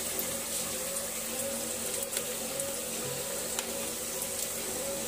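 Hot oil sizzling steadily in kadhais on a gas stove as paneer cubes and sliced onions fry, with a couple of sharp crackles.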